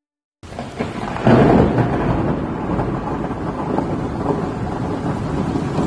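Thunder sound effect: a rumble with crackle and a rain-like hiss that starts about half a second in, swells a second later, then holds steady.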